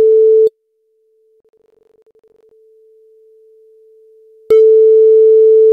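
Telephone ringback tone of an outgoing call waiting to be answered: a loud steady tone ends about half a second in, then after a pause of about four seconds it rings again near the end.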